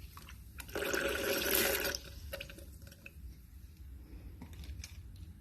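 Liquid poured into a cup of water for about a second, from a tablespoon of mandarin aloe concentrate, followed by a few faint light clicks.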